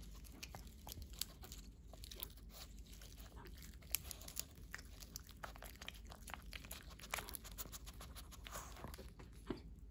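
Pomeranian puppy nosing and licking at a lettuce leaf held in a hand: quick crisp crackles of the leaf mixed with small wet licking clicks and snuffles, as it hunts for a treat hidden inside the leaf.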